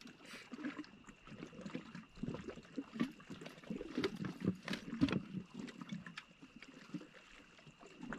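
Irregular clicks, knocks and rustling as a fishing rod and a tangled line are handled on a boat's deck.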